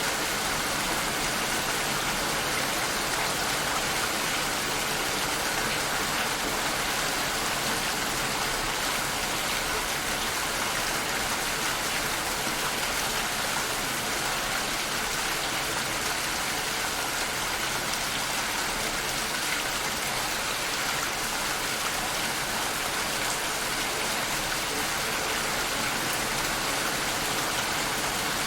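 Steady rainfall: an even hiss of rain with no let-up or change in strength.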